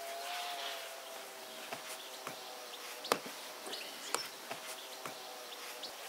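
Hands working balls of dough on a floured wooden board, with a few soft taps, the clearest about three and four seconds in. Behind them are a faint steady hum and a few faint bird chirps.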